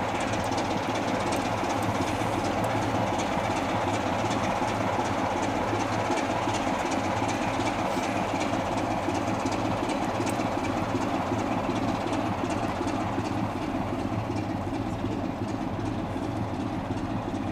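BR Class 27 diesel locomotive standing with its engine idling steadily, a constant low throb.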